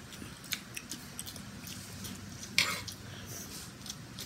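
Spoon and fork clinking and scraping against a plate of fried rice: light, scattered clicks, with one louder short scrape about two and a half seconds in.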